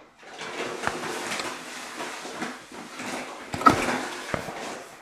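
A cat's body and fur rubbing against the camera and its microphone: continuous rustling and scraping handling noise with scattered knocks, the loudest a sharp knock a little past halfway.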